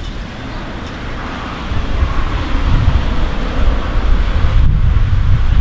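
Low rolling thunder rumble that swells about two seconds in and keeps rumbling.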